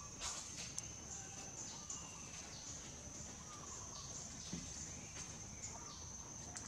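A steady high-pitched insect drone, with faint short bird calls at times.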